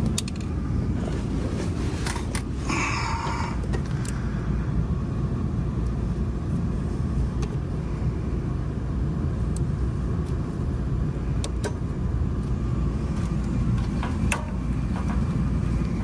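Steady low machinery rumble, with scattered light clicks and a brief rustle about three seconds in as furnace wiring and connectors are handled.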